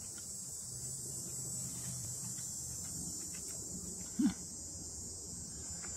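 Steady high-pitched chirring of insects, with a brief hum of a man's voice, rising slightly in pitch, about four seconds in.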